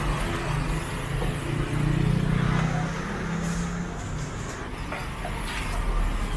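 Street traffic: a motor vehicle's engine running close by, loudest about two seconds in and easing off after, over steady road noise.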